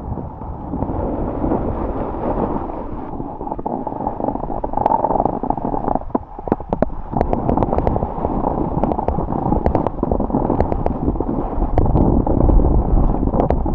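Snowboard sliding and carving down a groomed piste, the board scraping over the snow with wind buffeting the microphone. From about five seconds in, a run of sharp clicks and rattles joins the scraping.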